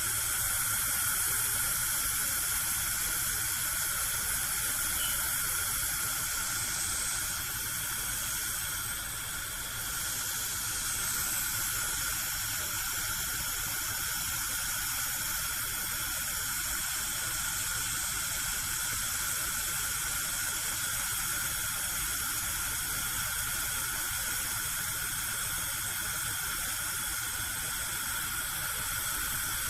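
Gas cooker burner alight, a steady hiss of gas and flame, dipping slightly about a third of the way through.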